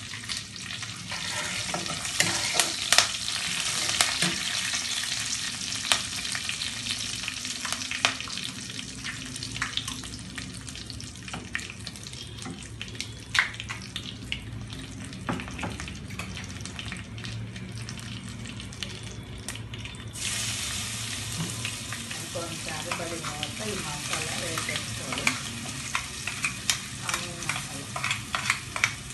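Seeds and curry leaves frying in hot oil in a steel pan: a steady sizzle broken by sharp pops and crackles. Near the end the clicks come thicker as chopped cluster beans are tipped into the pan.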